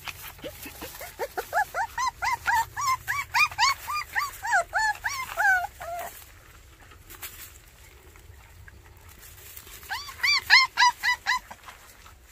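Baekgu (white Korean native dog) puppies whining: a quick run of short high cries, each rising and falling in pitch, then a pause of a few seconds and a second, shorter run about ten seconds in.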